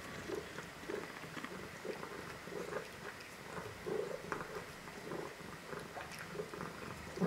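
A domestic cat eating wet food from a stainless steel bowl: irregular chewing and smacking sounds about twice a second with scattered light clicks, a louder one at the very end, over a low steady purr.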